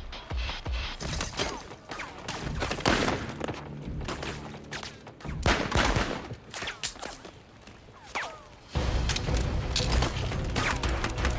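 Gunfight film soundtrack: repeated gunshots and bullet impacts on stone, coming thick and irregular. About three-quarters of the way in, a dramatic orchestral score swells in under the gunfire.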